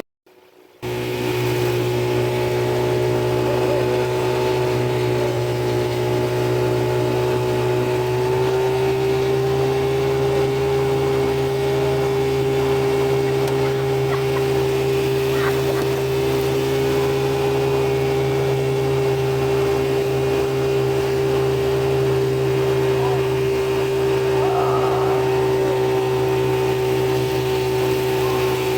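Boat motor running steadily under way, starting after a brief silence and rising a little in pitch about eight seconds in.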